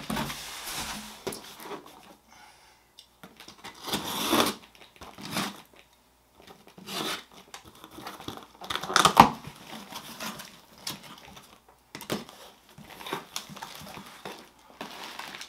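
A cardboard box being handled and opened: irregular rustling, scraping and tearing of cardboard and packing tape, with packing material crinkling. The sharpest, loudest burst comes about nine seconds in.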